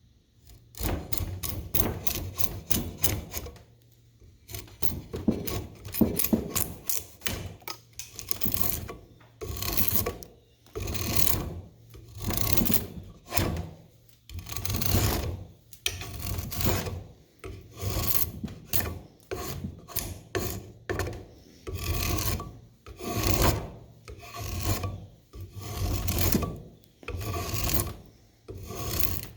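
Hand-tool rasping in repeated scraping strokes, about one a second, after a denser run of scraping in the first few seconds and a brief pause.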